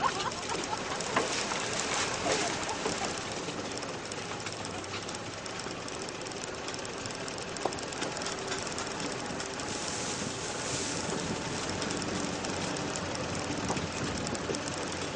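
Off-road vehicle driving over a rutted dirt track, heard from on board: a steady engine drone mixed with road noise. There are a few sharp knocks, at the start, about a second in, and again near eight seconds.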